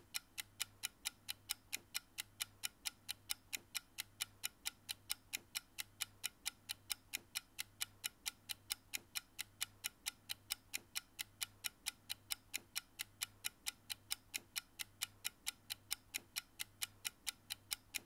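Clock-ticking sound effect, with rapid, evenly spaced ticks several times a second, counting down the time allowed to answer a quiz question.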